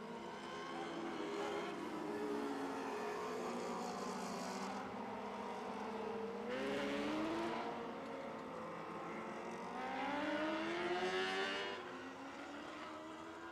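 Lightning sprint cars running around the dirt track under caution before the restart, their engines rising and falling in pitch as they pass. Two passes about 6.5 and 10 seconds in are louder.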